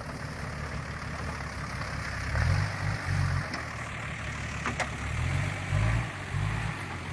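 A Nissan off-road 4x4's engine idles close by, with louder low rumbles for about a second starting around two and a half seconds in, and again through the second half.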